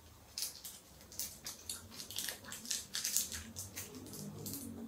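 Quiet mouth sounds of someone eating an intensely sour hard candy: a run of short, irregular smacks and crunches, several a second.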